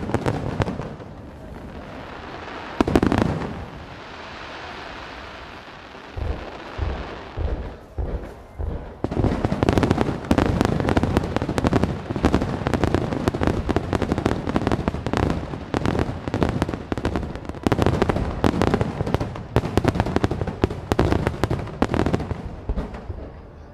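Aerial fireworks bursting overhead: a boom about three seconds in, then a few seconds of hiss, then from about eight seconds in a dense barrage of bangs, several a second.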